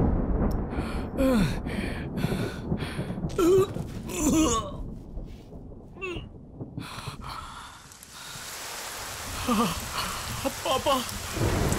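A man's wordless cries and gasping breaths, then rain coming in about eight seconds in and growing heavier under further cries.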